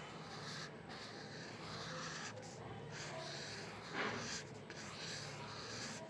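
A pen tip scratching across textured paper as curved lines and circles are drawn, in a series of short strokes with a louder scrape about four seconds in. A faint steady hum sits underneath.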